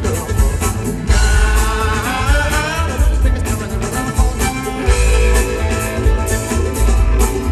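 Live band playing a bluegrass-rooted rock tune: electric guitar, upright bass, drums and fiddle, loud and full.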